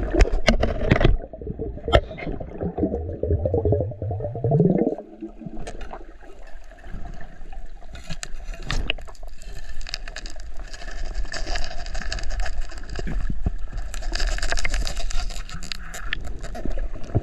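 Underwater sound around a free diver's camera. Water rushes and bubbles with a low rumble that rises in pitch and stops about five seconds in, then gives way to a steady crackling hiss with sharp clicks and scrapes as the tickle stick and net work the seagrass bottom for a spiny lobster.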